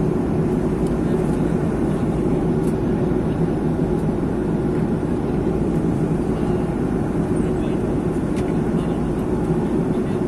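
Steady drone inside an Airbus airliner cabin in flight: engine and airflow noise with no change in level, with a few faint ticks.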